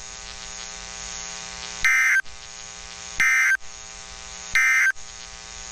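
Emergency Alert System SAME end-of-message data bursts from a weather radio broadcast: three short, harsh digital bursts about 1.3 s apart, over a steady radio hum. They mark the end of the severe thunderstorm warning that was just read.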